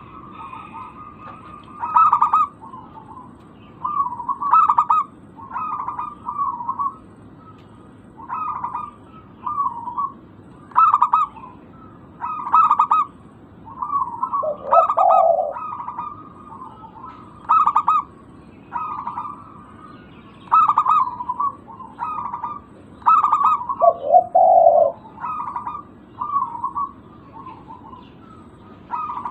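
Zebra dove (perkutut) singing: short staccato cooing phrases repeated every second or two, with a couple of deeper coos in between.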